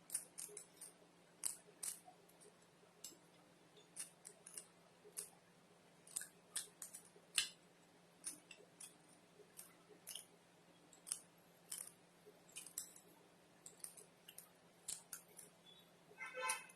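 Someone eating dry spicy noodles: faint, irregular clicks of chewing and eating, about one or two a second, with a brief voiced sound near the end.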